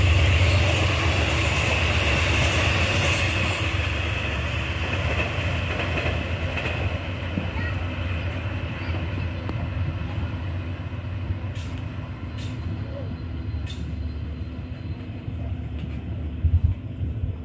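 Passenger train that has just passed close by, rumbling away down the track and fading steadily, with a high whine that dies out in the first few seconds. Three faint sharp cracks come about two-thirds of the way through.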